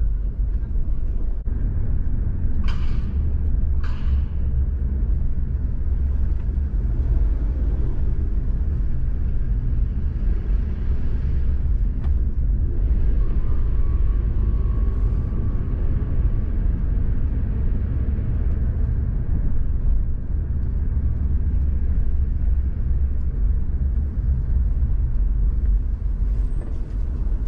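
Car driving at low speed, heard from inside the cabin: a steady low rumble of road and engine noise, with two brief sharper sounds about three and four seconds in.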